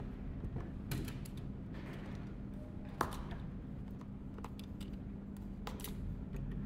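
Cardboard packaging being handled: light scattered clicks and rubs of card as a small white box is lifted and turned over, with one sharper knock about three seconds in. A steady low hum runs underneath.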